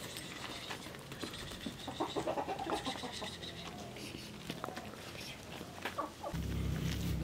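Domestic chickens clucking in short, scattered calls, busiest about two to three seconds in. Near the end a steady low rumble comes in.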